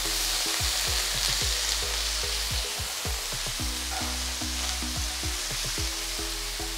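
Chopped brinjal (eggplant) cubes sizzling and frying in hot oil in a pan, stirred with a wooden spatula, over soft background music.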